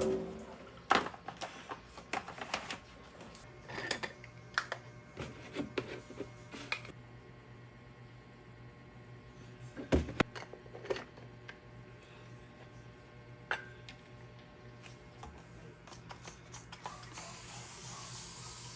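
Household items being handled in a kitchen: scattered light clicks and knocks, with one louder knock about halfway through. A hissing noise starts near the end.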